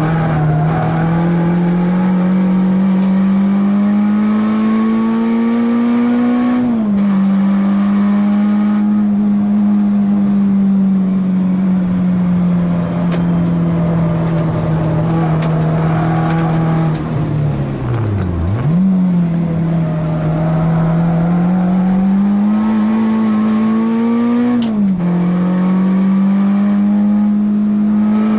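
Renault Clio 2 RS's 2.0-litre four-cylinder engine running hard on a race track, heard from inside the cabin. The revs climb slowly and drop sharply at gear changes about 7 seconds in and again about 25 seconds in, with a brief deep dip in revs and a quick climb back around 18 seconds.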